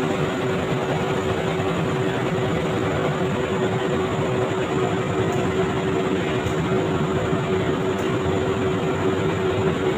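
Steady running noise of a passenger train on the move, with one steady hum held over it.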